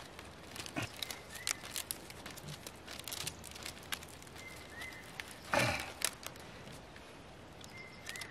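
Bundle of long plant stalks rustling and crackling as they are handled and tied by hand, with many short sharp crackles and one louder crunch about five and a half seconds in.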